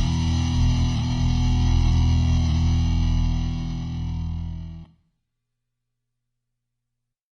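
Background music with distorted electric guitar sustaining, easing down slightly and then ending abruptly about five seconds in.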